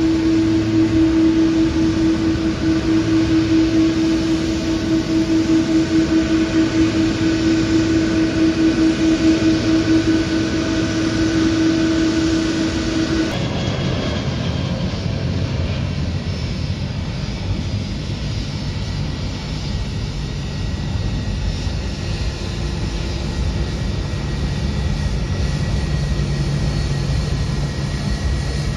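Airliner noise on an airport apron. For about 13 seconds an airliner parked at its gate gives a steady machine hum that holds one tone. Then the sound changes abruptly to the lower, steady rumble and faint whine of a Jetstar jet's engines as it taxis.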